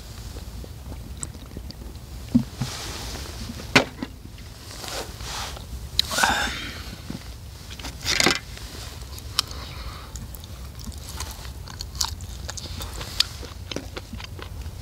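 A man chewing and biting into jokbal (braised pork trotters) close to the microphone, with irregular wet smacks and sharp clicks over a steady low rumble.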